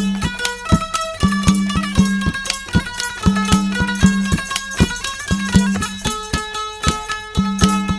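Instrumental interlude of Indian folk devotional music: a melody in held, stepping notes over a steady, regular drum beat.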